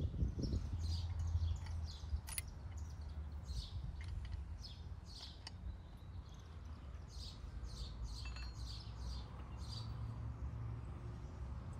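Small birds chirping, a rapid run of short, quick calls repeating throughout, over a low steady rumble. A couple of sharp clicks cut in.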